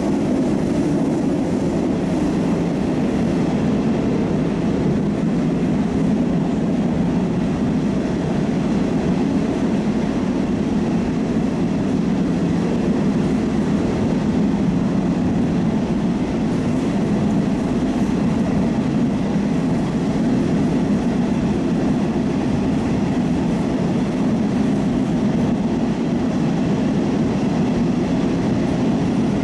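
Moscow Metro Oka (81-760/761) train running between stations, heard from inside the car: a steady, unbroken rumble of wheels and running gear.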